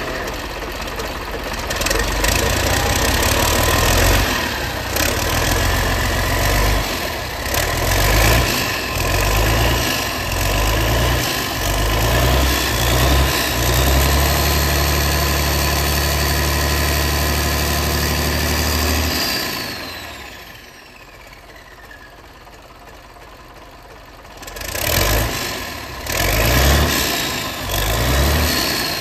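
An Iveco 8210.22 inline-six turbodiesel is being revved by hand at the throttle lever. The revs rise and fall repeatedly, then are held high for about five seconds with a rising turbo whine. It drops back to idle as the whine winds down, and the throttle is blipped three times near the end.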